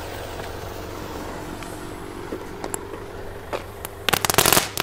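Small ground firework ball ('Feuerball') burning on a canvas with a low hiss and a few scattered pops, then about four seconds in a quick burst of crackling pops lasting under a second.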